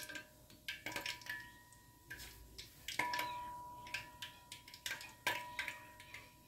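Wooden spoon handle held in hot frying oil in a pot: faint crackles in short clusters every second or so, some followed by a brief ringing tone. The oil bubbling around the wood is the sign it is hot enough to fry.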